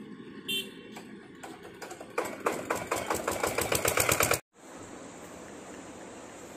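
A small engine running close by, heard as rapid even ticking at about ten a second that grows louder for a couple of seconds, then cuts off abruptly and gives way to a steady hiss.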